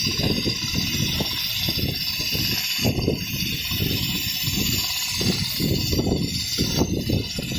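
Richpeace computerized non-stop sewing machine stitching a quilted panel: the sewing head runs with a fast, uneven stitching clatter over a steady high hiss.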